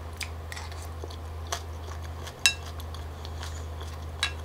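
Wooden spoon knocking against a ceramic bowl: a few light clicks and two sharper clinks, the louder one about halfway through with a brief ring.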